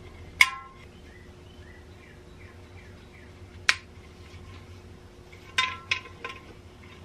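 Sharp metallic clinks with a brief ring as the suspension liner's metal clips and strap hardware knock against the enamel-painted metal shell of a 1950s civil defense helmet. There is one clink about half a second in, another a few seconds later, and three in quick succession near the end.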